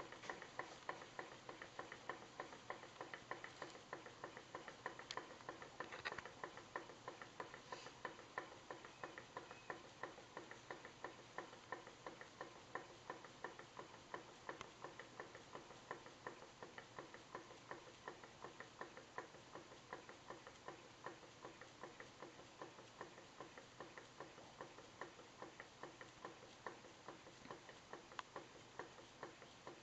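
Model hot air engine running steadily, its moving parts making a quiet, rapid, even ticking clatter with each turn of the flywheel.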